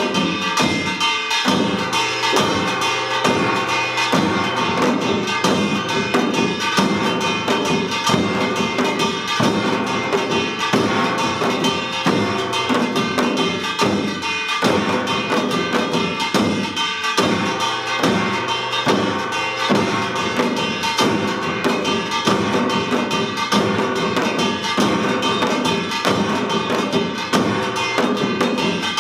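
Samul nori percussion ensemble playing a Yeongnam rhythm: janggu hourglass drums and buk barrel drums struck in a fast, dense, steady beat, with metal ringing above the drums.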